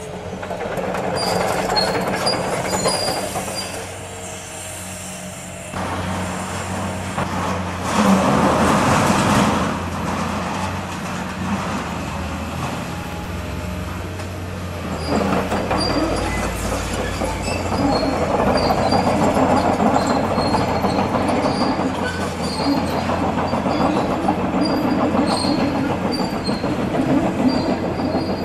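Heavy demolition machinery at work: a diesel engine running steadily under repeated high metal squeals, with surges of crunching and rumbling as building debris is broken and moved.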